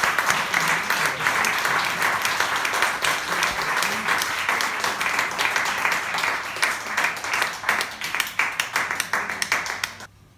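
Audience applauding, many hands clapping together. The clapping thins out near the end and stops.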